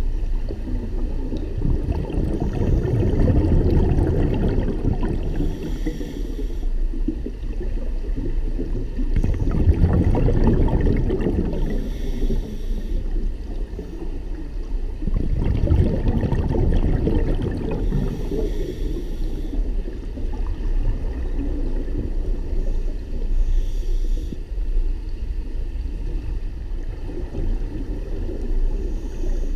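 Scuba regulator breathing heard underwater: exhaled bubbles rumbling out in long bursts about every six seconds, with a fainter hiss of inhalation between them.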